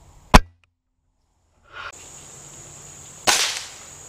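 Two sharp reports from a .22 Gamo Whisper Fusion Mach 1 break-barrel air rifle firing a pellet: the first, the loudest, under half a second in, the second about three seconds later with a short fading tail. Faint insect hiss lies beneath.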